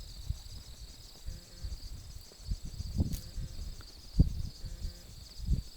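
A steady, high-pitched pulsing trill of insects in the background. A few low thumps stand out, the loudest about four seconds in.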